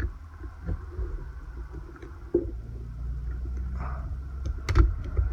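Small plastic parts of a power window and door lock switch assembly being handled and pressed together, with scattered light clicks and a few sharper knocks near the end over a steady low rumble.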